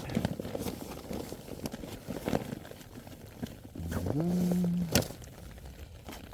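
Inflatable sleeping pad being deflated by hand: rustling and clicking of its fabric and valve being handled. About four seconds in comes a low moaning tone that lasts about a second, then a sharp click.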